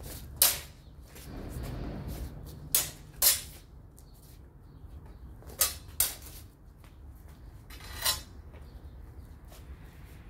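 Broadswords clashing in sparring: six sharp clacks of blade striking blade, one near the start, a quick pair a little under three seconds in, another pair around six seconds, and a last one about eight seconds in.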